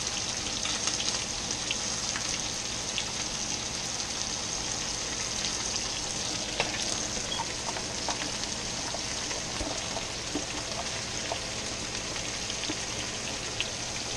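Fish fillets and sliced potatoes frying in oil in two skillets: a steady sizzle with scattered small pops and crackles.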